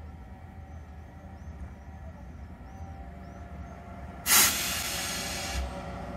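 Vossloh G 1700BB diesel locomotive rumbling low as it pulls in, with a sudden loud burst of hissing compressed air from a train's air system about four seconds in, cutting off after just over a second.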